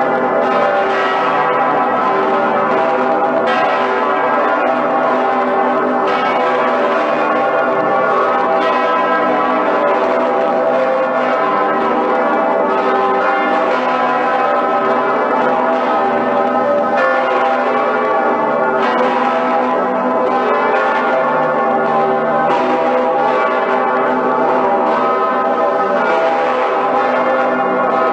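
Large swinging church bells of Cologne Cathedral ringing together: overlapping strikes over a dense, continuous ringing hum, with no pause.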